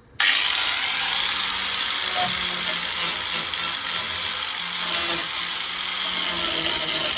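Angle grinder fitted with a sanding disc starting abruptly about a quarter second in, then running steadily as it sands a rusty steel body panel.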